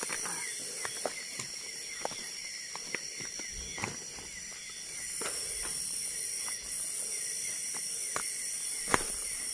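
Night insects shrilling steadily in two high tones, with irregular footsteps crunching and snapping on the forest floor; one louder snap about nine seconds in.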